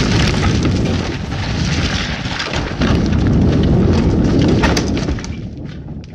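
Explosion sound effect: a deep rumbling blast already under way, swelling again about three seconds in with scattered crackles of debris, then dying away near the end.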